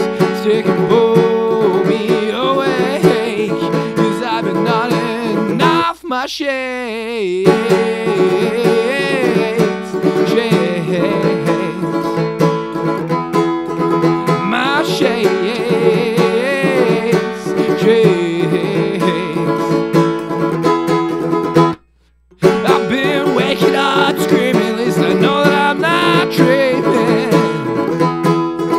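A recorded song in a passage without lyrics, with plucked strings over a full band. About six seconds in, the low end drops out briefly under a swooping glide. About 22 seconds in, the music cuts to silence for half a second, then comes back in.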